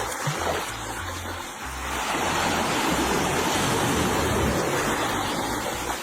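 Steady rushing noise of moving water.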